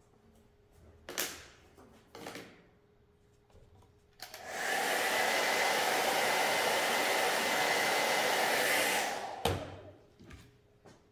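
Handheld hair dryer blowing steadily for about five seconds, with a thin whine over the rush of air, drying freshly screen-printed ink on a T-shirt. It switches on about four seconds in and cuts off near the end. A couple of short handling noises come before it, and a knock follows just after.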